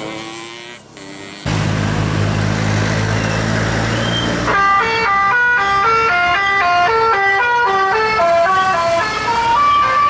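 Isuzu Elf minibus engine running, then from about four and a half seconds in its telolet horn, a set of musical air horns, plays a quick stepped tune of several notes sounding together.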